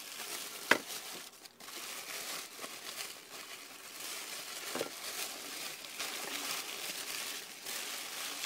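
Thin black packing paper rustling and crinkling as hands pull it out of a box, with a sharp click under a second in.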